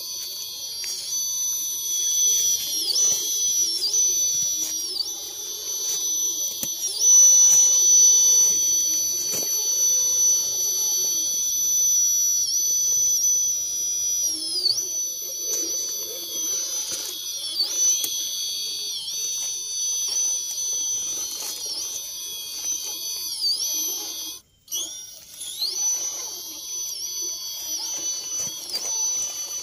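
High-pitched whine of a 1/10-scale RC crawler's electric motor and geartrain, its pitch repeatedly dipping and climbing back as the throttle is eased and applied. The sound cuts out briefly about 24 seconds in.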